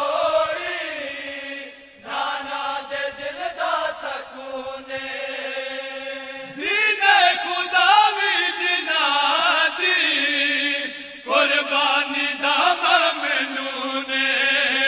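Male voices chanting a Punjabi devotional kalaam without instruments, in long held, melodic phrases that break briefly about 2, 6.5 and 11 seconds in.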